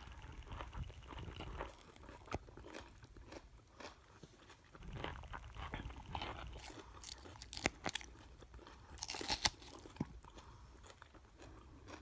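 Close-miked chewing of a mouthful of dressed salad: irregular crisp crunches, with a louder run of crunching about nine seconds in.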